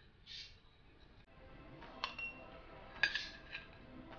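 Metal spoon clinking lightly against a ceramic plate and glass tumblers as cut strawberries are spooned into the glasses. There are two faint clinks about a second apart, each with a short ring.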